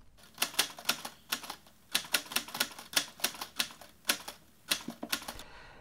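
Knitting needles clicking against each other as stitches are worked, a quick, irregular run of light clicks, about four to five a second.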